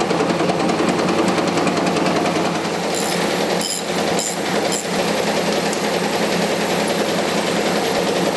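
Forklift engine running steadily. About three to five seconds in, a ratchet wrench clicks in four short bursts as it turns the fixture bolts.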